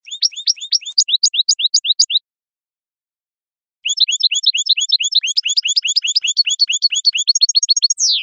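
European goldfinch singing: a phrase of rapid, repeated high notes lasting about two seconds, then after a short gap a longer phrase of about four seconds that ends in a falling slur.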